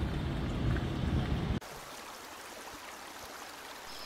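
Steady rush of a mountain trout stream. For the first second and a half a louder low rumble lies over it, cut off suddenly, leaving the even water noise alone.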